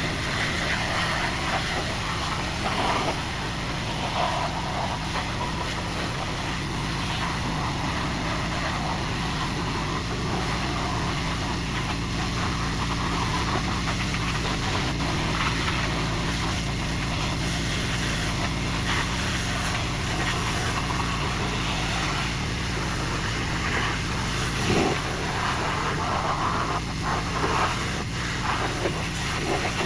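A 4,000 psi pressure washer running steadily, its engine humming under the constant hiss of the water jet as it rinses metal-prep residue off a sandblasted truck frame.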